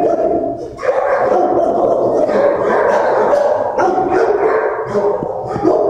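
Several dogs barking at once in a shelter kennel, a continuous din of overlapping barks with a brief lull just before a second in.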